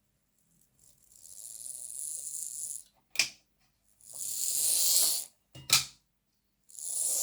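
Lima Class 55 Deltic OO gauge model's motor and gears whirring in three short runs, with a sharp click between runs. It is a wee bit noisier in reverse than forwards.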